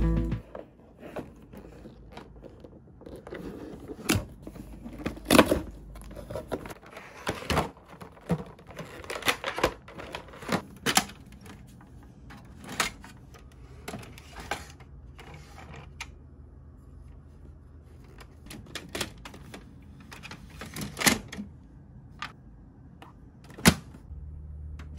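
Sharp plastic clicks, knocks and handling sounds as an HP 202X LaserJet toner cartridge is unpacked and fitted into an HP Color LaserJet Pro laser printer. The clicks come singly and irregularly, a few seconds apart. Near the end comes one louder click, and then the printer starts a low steady hum.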